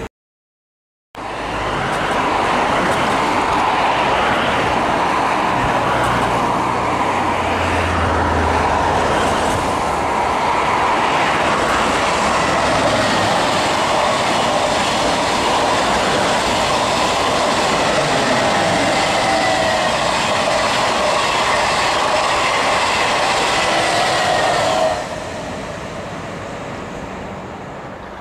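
Double-deck TGV Duplex high-speed train passing at speed: a loud, steady rush of wheel and air noise with a faint whine, cutting off suddenly near the end.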